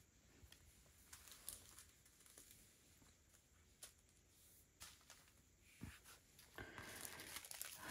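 Near silence with faint, scattered crinkles and taps of small plastic zip bags of diamond-painting drills being handled and set down. The rustling grows a little louder near the end as the next bag is picked up.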